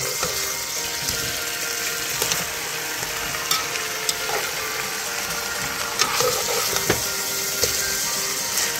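Vegetable chunks and barley sizzling in a hot pot as they are stirred, the spoon scraping and knocking against the pot a few times.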